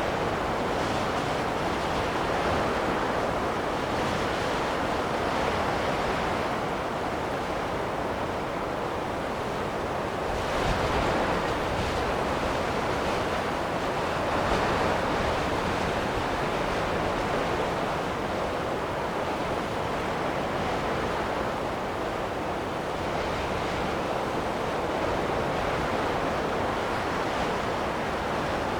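Wind blowing in gusts: a continuous rushing noise that swells about ten seconds in and again a few seconds later.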